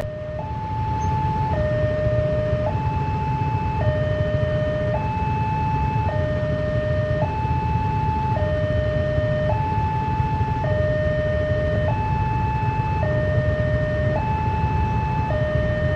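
Ambulance siren in a two-tone hi-lo pattern, switching between a higher and a lower note about every second, over the low rumble of vehicle engines.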